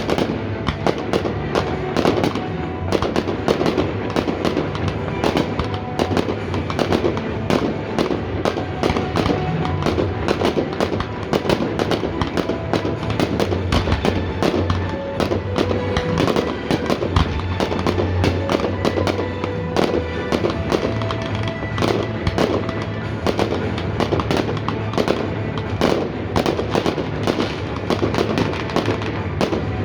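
Aerial fireworks going off in quick succession, many sharp bangs and crackles a second, with music playing underneath.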